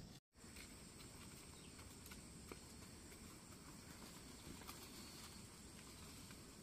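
Near silence: faint outdoor background hiss with a few faint ticks.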